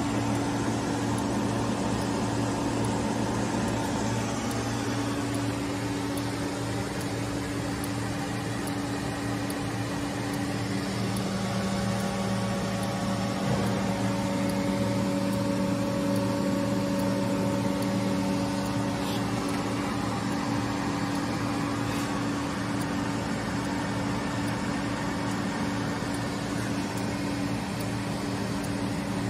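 Steady electrical hum and whir from a powered-up Biglia B 750 CNC lathe and its electrical cabinet, with several steady low tones under a noisy haze. A higher tone joins for a while in the middle.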